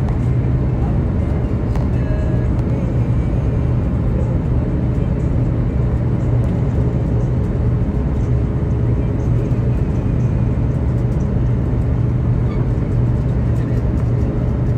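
Steady cabin noise of a jet airliner on its landing approach, heard from a window seat beside the wing-mounted turbofan engine: a continuous, unchanging rumble with a strong low hum.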